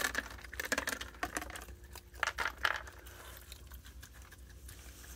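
Peanuts in the shell tossed onto wooden deck boards, landing in a scatter of light clicks and taps, thickest in the first few seconds and thinning out after.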